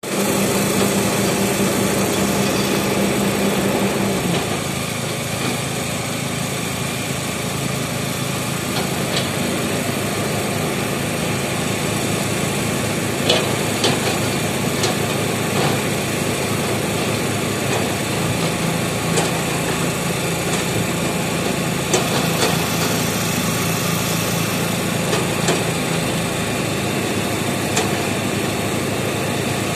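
Heavy construction machine's engine running steadily, its note dropping about four seconds in, with a few sharp knocks.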